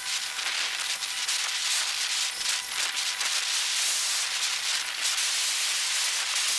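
A steady hiss that wavers slightly in level.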